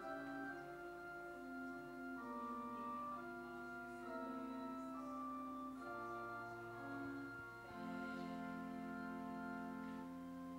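Organ playing slow, held chords of a hymn tune, the notes changing every second or so.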